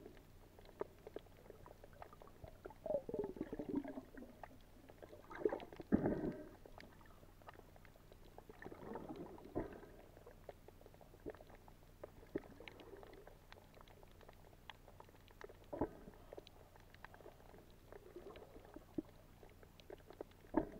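Muffled underwater sound from a camera held below the surface: water sloshing and bubbling in a few short bursts, with scattered small clicks in between.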